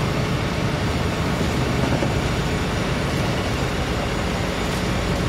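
Tender boat's engine running steadily underway, a low even drone under a constant rushing noise of water and air.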